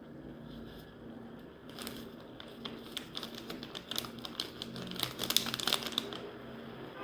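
Plastic instant-noodle packaging crinkling and crackling as it is handled, a dense run of sharp crackles starting about two seconds in, loudest near the end and stopping about a second before the end.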